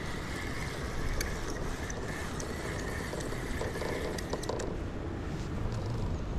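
Fishing reel whirring steadily for about four and a half seconds as a just-hooked fish is played on the line, over the steady rush of the river.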